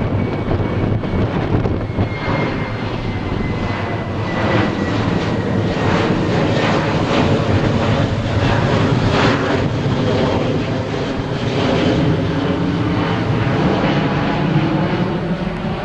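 Boeing 737-700's twin CFM56-7B turbofan engines at climb thrust as the jet passes overhead just after takeoff: a steady, loud jet rumble, with a faint fan whine that slides down in pitch a few seconds in as it goes by.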